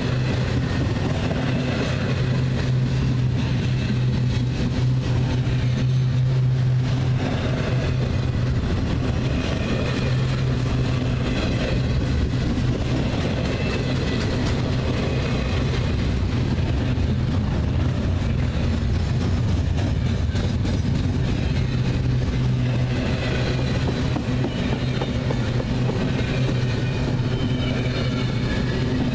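Double-stack intermodal container cars rolling steadily past: a continuous rumble of steel wheels on rail with a low, even hum throughout.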